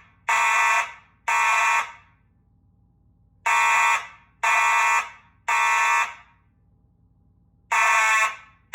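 Two Simplex mechanical fire alarm horns (4903-9219 and 4901-9805) blasting together in the code 3 temporal pattern: three half-second blasts a half second apart, a pause of about a second and a half, then three more. The next group starts near the end.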